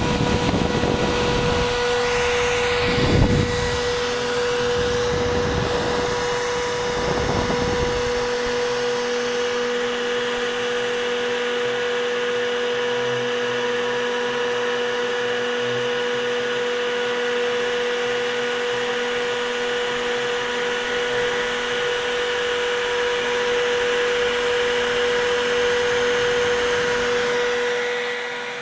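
CNC router spindle running steadily with a high whine while it carves a 3D relief into wood. Low rumbles in the first several seconds.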